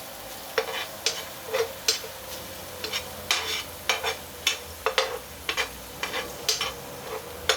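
A spoon scraping and knocking against a frying pan, irregularly about once or twice a second, as onions and tomatoes are stirred. Faint sizzling runs underneath.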